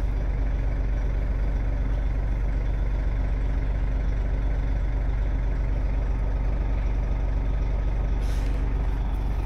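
An engine running steadily at constant speed, an even low drone with no change in pitch.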